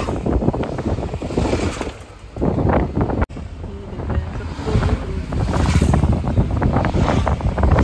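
Wind buffeting the microphone: a heavy, uneven low rumble that dips briefly about two seconds in and breaks off abruptly just after three seconds before going on.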